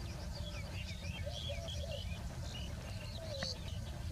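Birds chirping: many short high chirps, with a few lower whistled notes among them, over a steady low rumble.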